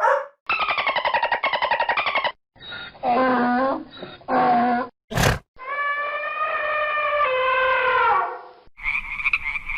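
A run of separate animal-call sound effects, each cut off abruptly: a buzzing call that falls in pitch, two low grunts, a sharp click, then a long call held for about three seconds. Frog croaking starts near the end.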